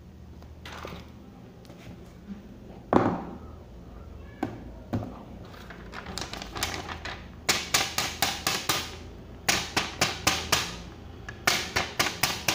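Thin clear plastic phone sleeve being handled and folded: a few separate soft taps, then three bursts of rapid crinkling crackle in the second half.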